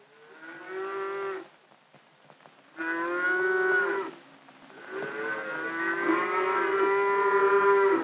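A cow mooing: three long moos, the third the longest.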